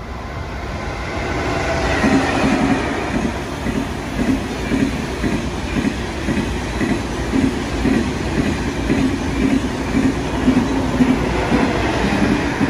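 Train wheels clattering rhythmically over rail joints, roughly two clacks a second, growing louder about two seconds in and running on steadily over a low rumble.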